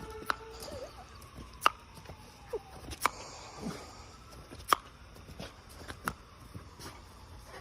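A series of sharp taps or knocks, about six, spaced irregularly a second or so apart, over a faint background.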